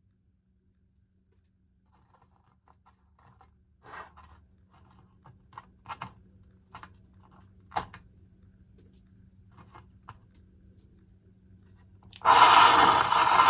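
Small clicks and taps of parts being handled, then about twelve seconds in a small power tool starts up loud and keeps running, working into the plastic of the model crossing gate.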